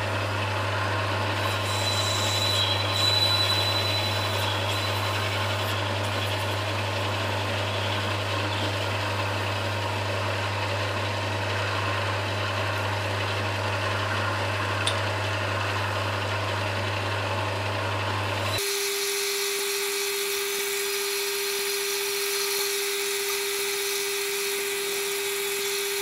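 Sieg C6 bench metal lathe running in reverse, turning an aluminium rod while a tool cuts an angled edge on its end: a steady motor hum with machining noise. About two thirds through the sound changes suddenly to a single, steadier, higher hum.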